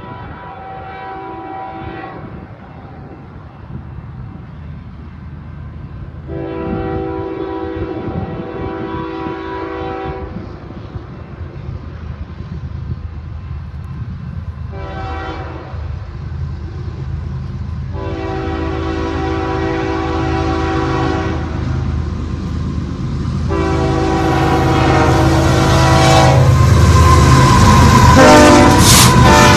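Diesel locomotives hauling a loaded BNSF coal train sound a multi-note air horn in a series of blasts (short, long, short, long, then a long held blast) in the pattern used for a grade crossing. Under the horn, the engine rumble and rail noise grow steadily louder as the lead units approach and roll past close by near the end.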